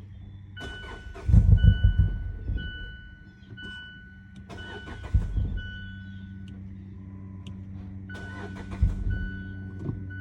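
2018 Mazda 6 struggling to start: the engine turns over in three loud, rough bursts over a steady low hum, while a dashboard warning chime beeps repeatedly about once a second. The car has a starting fault, and it sounds bad to the owner.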